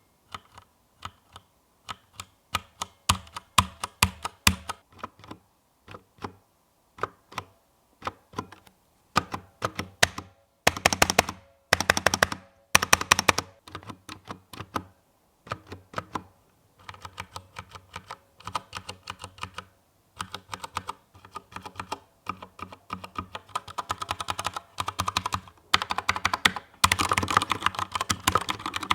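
Typing on a DURGOD Fusion wireless mechanical keyboard with Cherry MX Brown switches. At first the keystrokes come slowly and separately. A few short rapid bursts follow, then continuous fast typing that grows denser and louder toward the end.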